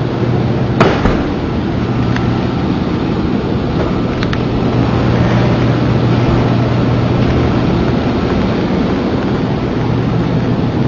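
Steady, loud rush of hurricane wind and rain, with a constant low hum under it and a single sharp crack about a second in.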